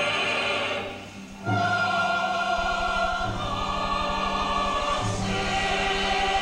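Choral music: voices singing long held chords over a low sustained bass. It dips briefly about a second in, then the held chords return.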